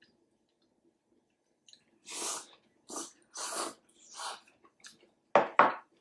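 Loud slurping of hotpot noodles and broth from a bowl: four or five slurps in a row about two seconds in. Near the end come two sharp coughs in quick succession, the loudest sounds.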